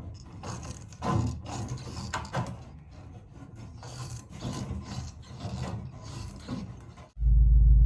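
Irregular scraping and rasping strokes of hand work on a material. About seven seconds in they cut off abruptly and a loud, steady low rumble takes over.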